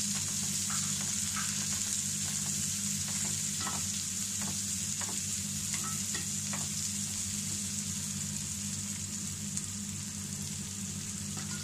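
Chopped onions sizzling in hot oil in a frying pan, stirred with a metal slotted spoon that scrapes and taps against the pan now and then, over a steady low hum.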